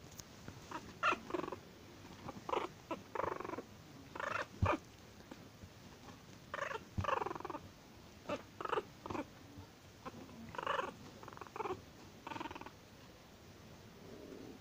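Chihuahua puppy growling and yapping angrily in a string of short bursts, some with a falling pitch, with brief pauses between them.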